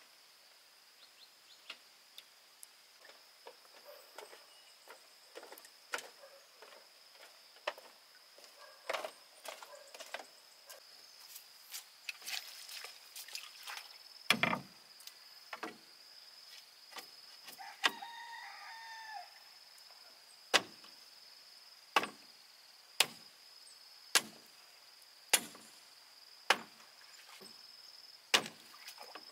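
Sharp knocks of hand-tool work on bamboo, scattered and uneven at first, then settling into a steady beat of about one knock a second for the last third.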